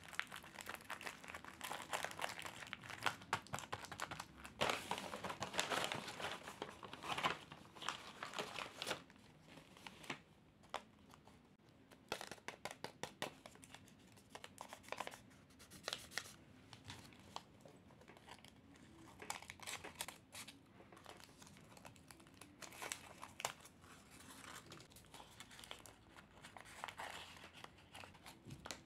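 A tape-covered paper blind bag being crumpled and torn open by hand: dense crinkling for roughly the first nine seconds, then sparser, separate crackles as a small folded paper packet is handled.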